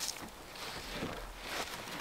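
Soft rustling and scuffing as a dog clambers over a man lying on a bed of wooden poles: clothing brushing, paws shifting, a few faint knocks and a short tick at the start.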